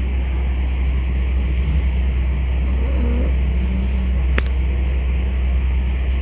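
A steady low rumble runs throughout and is the loudest sound. Over it, a sleeping puppy gives one faint snore about three seconds in, and there is a short click a little after four seconds.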